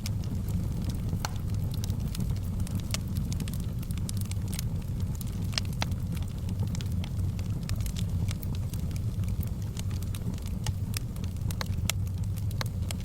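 Fire burning in a fireplace: a steady low rush of flames with irregular crackles scattered through it.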